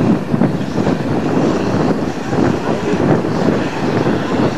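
Diesel shunting locomotive's engine running as the locomotive moves slowly along the track, with wind buffeting the microphone.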